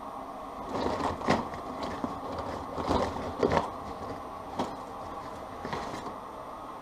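Tangled scraps of insulated electrical wire rustling and clinking as hands rummage through them in a cardboard box, in several irregular bursts, loudest about a second in and again around three and a half seconds. A steady hum runs underneath.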